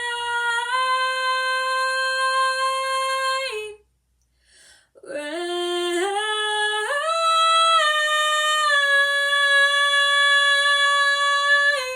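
A single voice singing wordless held notes unaccompanied, stepping between pitches in two long phrases, with a breath break about four seconds in.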